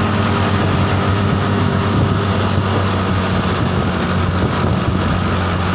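A bus engine running steadily on the road: a low, even drone with road noise over it.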